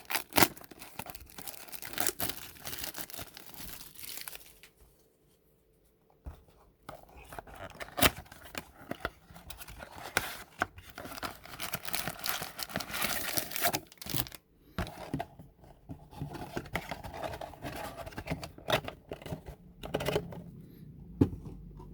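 Plastic shrink wrap on a cardboard baseball-card blaster box being slit with a box cutter, torn off and crinkled, with the cardboard box handled and opened. It comes in rustling, crackling stretches with sharp clicks and knocks, and goes quiet for about two seconds around five seconds in.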